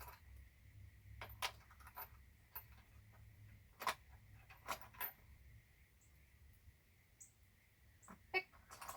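Light, scattered clicks and taps of small metal hardware being handled and sorted by hand, about a dozen over the stretch, with a faint steady hum beneath.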